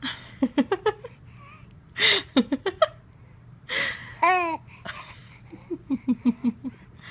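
A three-month-old baby with tracheomalacia cooing and giggling in short quick runs, with breathy, wheezy noise between them. The noisy breathing comes from her floppy airway.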